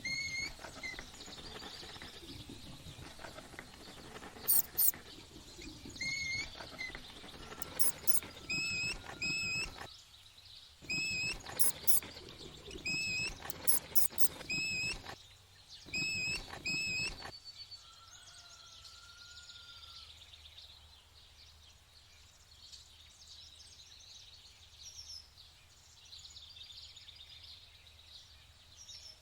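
Bird chirping: short high chirps repeated many times, often two in quick succession, with an occasional longer whistled note. Quieter in the second half.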